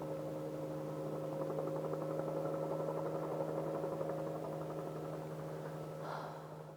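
Helicopter running steadily, a low hum with a fast flutter that fades out near the end.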